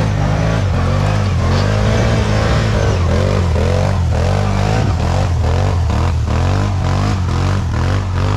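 Quad bike (ATV) engine revving hard under load, its pitch swinging up and down over and over as the rider works the throttle climbing a steep, muddy slope. It cuts off suddenly at the end.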